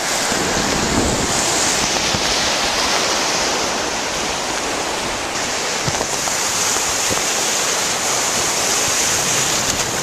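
Ocean surf washing and breaking around a wader in the shallows: a steady rushing of water, heard through a camera wrapped in a plastic bag.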